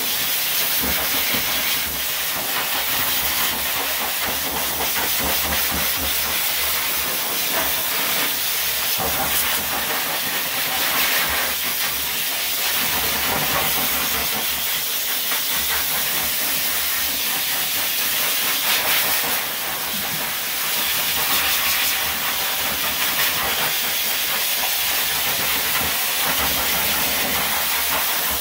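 Dog grooming blow dryer running steadily, a loud, even rush of air drying the dog's coat.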